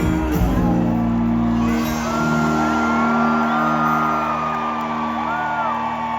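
Live country band ending a song. The heavy low end drops out about two seconds in, leaving a held final chord ringing while the audience whoops and whistles.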